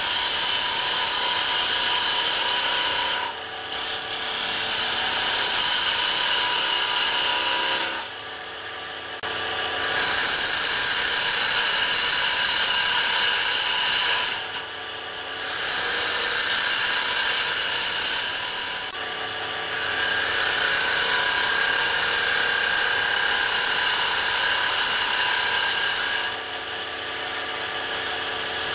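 Wood lathe spinning a wooden pepper-mill blank while a parting tool cuts a groove into it: a steady scraping cutting noise over the lathe's steady running tone. It is broken several times by short pauses where the tool is lifted and only the lathe runs, the last pause starting near the end.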